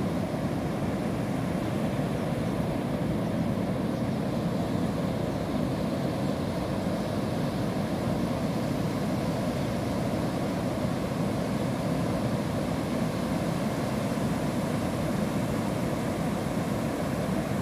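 Heavy surf: rough sea waves breaking over and over across the beach and against rocks, a continuous low roar.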